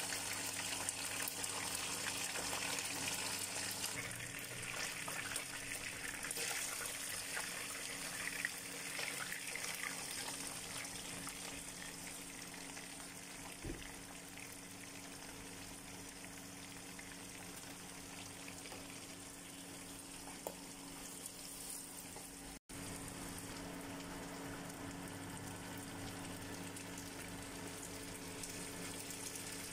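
Frog pieces sizzling in hot oil in a wok as they stir-fry with chili, onion and spring onion. The hiss is loudest in the first few seconds and settles to a softer steady sizzle, over a steady low hum. It cuts out for a moment about two-thirds of the way in, then carries on.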